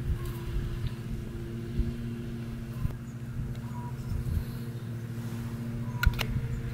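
Steady low mechanical hum, like a motor running in the background, with a few faint ticks and one sharp click about six seconds in.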